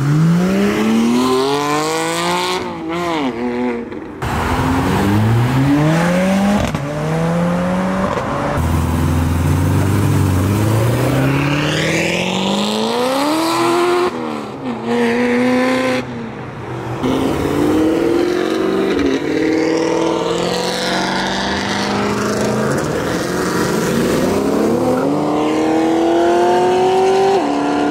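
A run of performance cars accelerating hard away one after another, starting with a Porsche Cayman GT4's flat-six and later a Corvette's V8. Each engine's pitch climbs steeply, then drops back at each upshift before climbing again.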